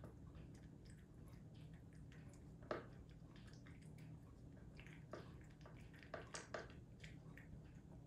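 A cat chewing and lapping wet canned food: faint, wet, squishy mouth clicks and smacks. There is a louder smack about three seconds in and a few more around five to six and a half seconds in.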